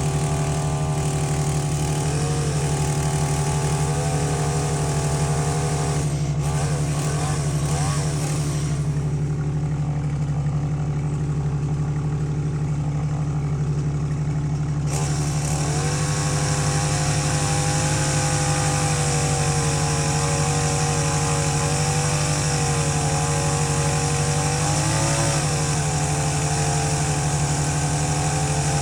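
An engine running steadily at idle, with a constant low hum and a slightly wavering pitch above it.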